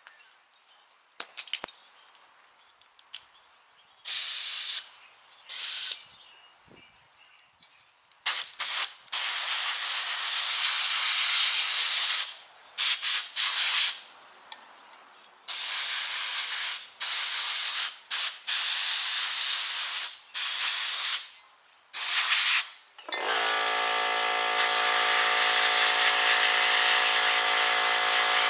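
Sandblaster gun blasting air and sand in on-off hissing bursts, some lasting several seconds. About 23 seconds in, a 21-gallon 2-1/2 HP cast-iron vertical air compressor kicks on and runs with a steady hum under the continued blasting, refilling the tank that the blasting has drawn down.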